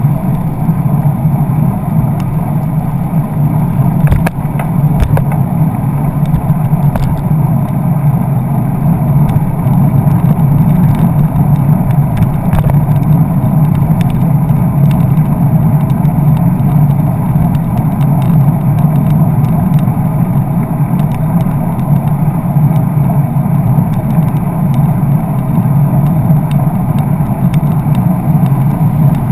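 Steady rushing wind and road noise on a bicycle's handlebar camera as the bike rides past slow car traffic, with a few sharp knocks from bumps several seconds in.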